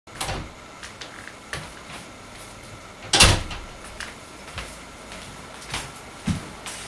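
A room door opening and shutting, with a loud thud about three seconds in, followed by a few scattered footsteps and light knocks across the floor.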